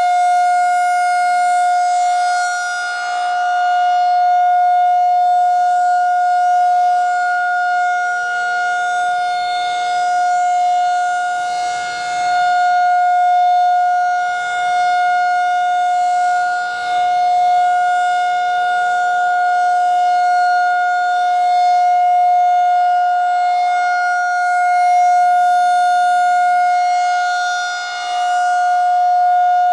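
Federal Signal 2001 rotating electromechanical warning siren sounding a steady alert tone for a monthly test. It holds one pitch with no rise or fall, while its loudness swells and dips slowly as it plays.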